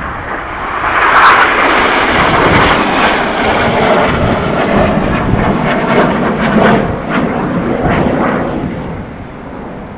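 BAE Systems Hawk jets of the Red Arrows passing overhead during a display, a loud jet engine rush that swells about a second in and fades away near the end, with some crackle in it.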